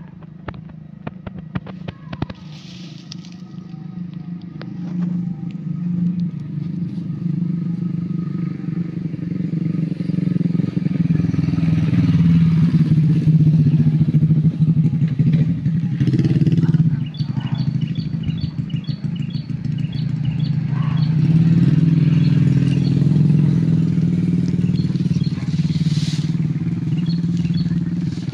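An engine running steadily with a low hum, growing louder over the first ten seconds or so and swelling again later. Light clicks sound in the first few seconds.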